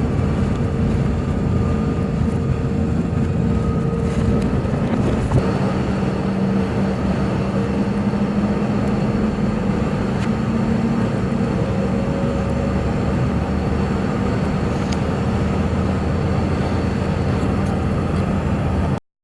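Heavy diesel engine of logging equipment running steadily under load, with a few faint knocks; it cuts off suddenly near the end.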